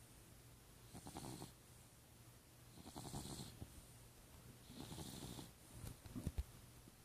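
Cat snoring softly in its sleep, with three raspy breaths about two seconds apart. A few low thumps follow near the end.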